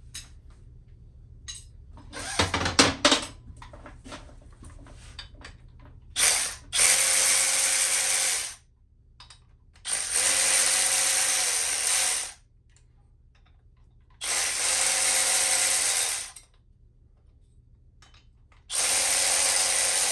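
Power ratchet run in four bursts of about two seconds each, spinning out the already-loosened cylinder head bolts on a Harley-Davidson Sportster Evolution engine. Before the first burst there are light clicks and a clatter of tools about two seconds in.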